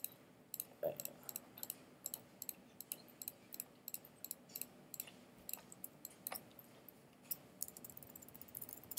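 Faint computer mouse clicks and keyboard key presses: an irregular run of light clicks, several a second, coming faster near the end.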